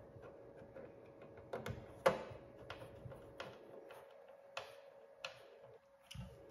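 Scattered small clicks and taps as a battery and its cover are fitted into the battery compartment of a fingerprint handgun safe and worked with a small screwdriver. There are about six clicks, the loudest about two seconds in, over a faint steady hum.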